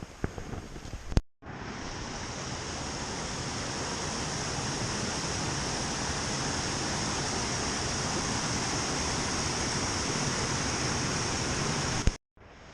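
Steady, loud rush of water from a rainforest creek waterfall, cutting in abruptly about a second in after a few light knocks.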